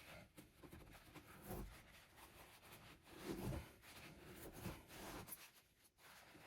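Faint rubbing and scraping of a paper towel wiping excess silicone off a plastic gold cube's riffles, with a few soft knocks.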